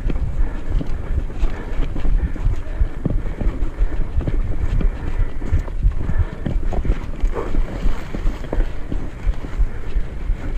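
Wind buffeting the microphone over the continuous rumble and rattle of a mountain bike riding a bumpy dirt singletrack, with many small irregular knocks from the trail.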